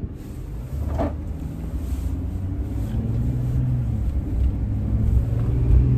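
Camper van's engine and road noise heard from inside the cab: a low rumble that grows steadily louder as the van gathers speed.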